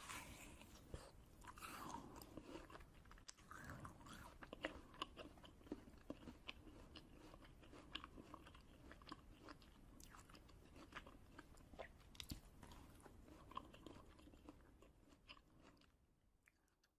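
A person chewing crunchy snacks close to the microphone, with many quiet, crisp crunches and crackles and soft mouth sounds. The crunching thins out and fades away near the end.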